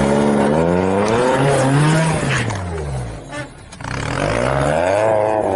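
Suzuki Samurai's BMW M42 1.8-litre four-cylinder engine revving up and down as the truck crawls an off-road obstacle, easing off about three seconds in, then revving up again.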